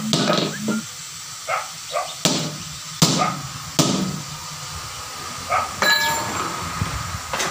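Hammer blows on the bead and steel rim of a 10.00 R 20 truck tyre being fitted: several sharp, ringing metal strikes, four loud ones in the first four seconds and lighter taps after.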